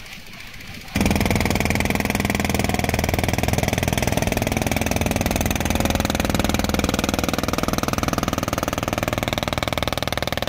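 A small engine running steadily at a fast, even beat, cutting in abruptly about a second in.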